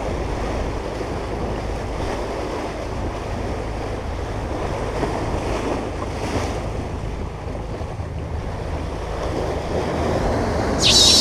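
Sea waves washing against the shore, with wind rumbling on the microphone. A short, loud, high warbling sound cuts in near the end.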